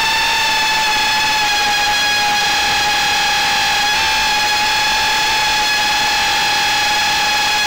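Brushless motors and 3-inch props of a small FPV quadcopter at cruise throttle, heard from the onboard camera as a loud, steady high-pitched whine over a constant hiss. The pitch nudges up slightly about four seconds in.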